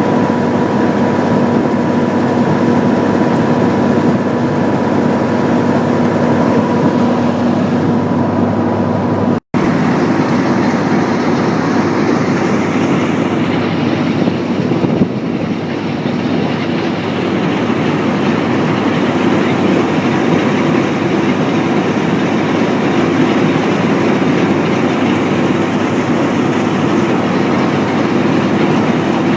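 Massey Ferguson combine harvester working in the field: the engine and threshing machinery running loud and continuous, with a steady hum in the first part. The sound cuts out completely for an instant about nine seconds in, then carries on.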